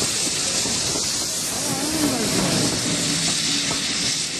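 Steady loud hiss of steam from a double-headed steam train passing close by: GWR Castle-class 4-6-0 No. 5029 Nunney Castle, then Somerset & Dorset Joint Railway 7F 2-8-0 No. 88.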